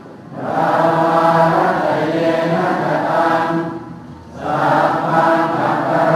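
Group of Buddhist monks chanting together in unison on a steady, level pitch, breaking briefly for breath just after the start and again about four seconds in.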